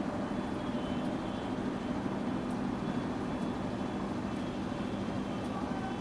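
Steady, unbroken hum of an electric multiple-unit train standing at the platform, its onboard equipment running while the train waits.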